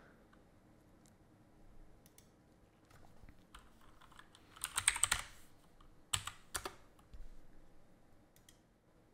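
Typing on a computer keyboard: a quick run of keystrokes about halfway through and a few more a second later, with scattered single clicks.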